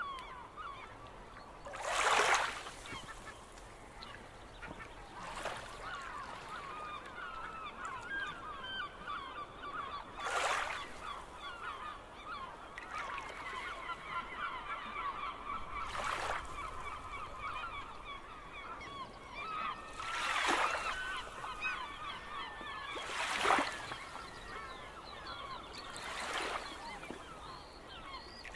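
A large flock of gulls calling without pause, many overlapping short cries. Seven short, louder rushing sounds come every three to five seconds, the loudest about two seconds in, around twenty seconds in and around twenty-three seconds in.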